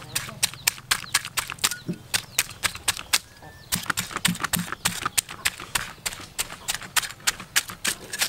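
Cleaver blade scraping the scales off a large fish in quick repeated strokes, each a sharp scratchy click, about five a second, with a brief pause a little before the middle.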